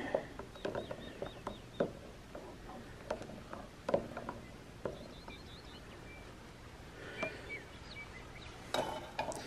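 Faint bird chirps: short runs of quick, high notes near the start and again in the middle, with a few thin whistled notes later. Scattered small clicks and knocks sound over quiet outdoor ambience.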